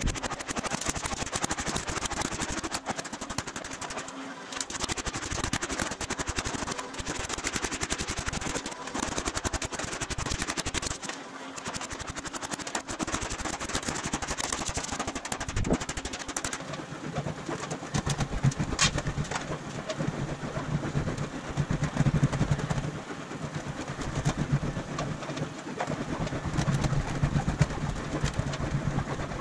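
A fast, continuous stream of sharp metalworking impacts on sheet aluminum. About seventeen seconds in, a steady low hum joins in under it.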